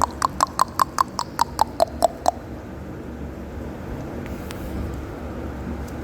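A young retriever puppy yelping in a quick run of about a dozen short, high squeaks, roughly five a second, the last few slightly lower, then stopping after a couple of seconds.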